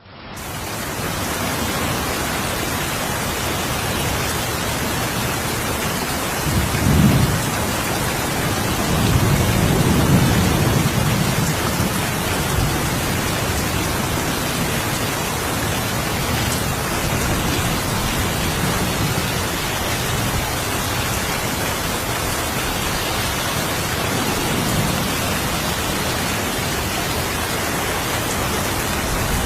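Steady rain falling, fading in over the first second, with low thunder rumbles swelling about seven seconds in and again around ten seconds, and a fainter rumble near the end.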